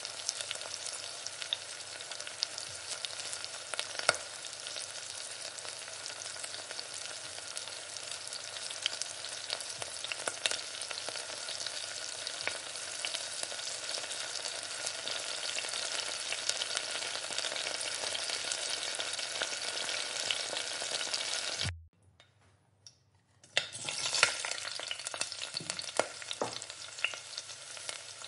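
Shredded chicken in spiced masala sizzling in a nonstick frying pan while a spatula stirs it, with scattered scrapes and taps; later, with liquid added, it sizzles on as a simmering sauce. About three-quarters of the way through the sound cuts out abruptly for about two seconds, then the sizzle returns with a few taps.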